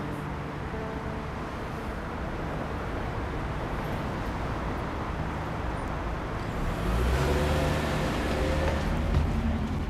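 City street traffic noise, cars going by on the road, with one vehicle passing louder about seven seconds in.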